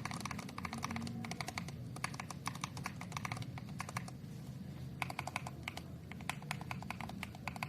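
Mechanical keyboard fitted with JERRZI Seashell linear switches being typed on: rapid runs of key-press clacks with a short lull about halfway through.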